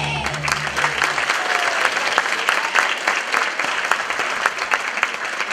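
Audience applauding with dense clapping, as the last notes of the dance music end about a second in.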